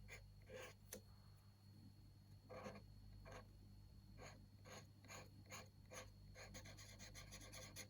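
Faint scratching of a colouring pen on paper: a run of short strokes, about two a second, as an area of the page is coloured in.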